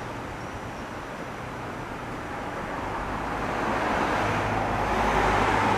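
A road vehicle approaching, its engine hum and tyre noise growing steadily louder toward the end.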